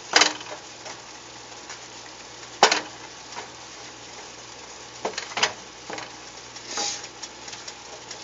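Plastic spatula stirring asparagus in a pan of simmering garlic sauce: a few sharp clacks and scrapes against the pan, the loudest two near the start, over a steady low sizzle.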